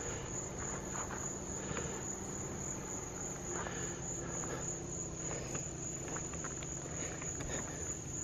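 Crickets trilling at night in one steady, high, unbroken tone, with a low steady hum and faint scattered rustles underneath.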